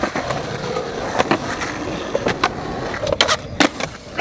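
Skateboard wheels rolling on concrete, with several sharp clacks of the board, the clearest about a second in and a cluster near the end.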